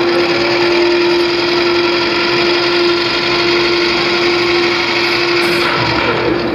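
A steady mechanical buzzing drone with one held tone, from the soundtrack of an animated film played through an arena's sound system.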